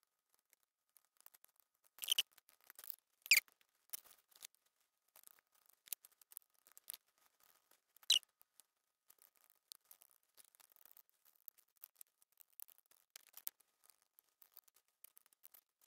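Laptop parts being fitted back into the chassis by hand: faint clicks and scrapes throughout, with short squeaks about two, three and eight seconds in. The one near three seconds is the loudest.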